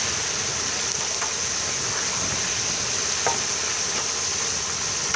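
Dumplings deep-frying in a large wok of hot oil: a steady sizzling hiss. A metal ladle stirring them gives a few brief clinks.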